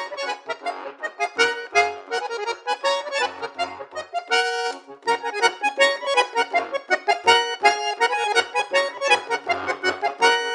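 Solo accordion playing a fast passage of rapid short notes, with separate low bass notes underneath. A brief held chord sounds a little before the middle.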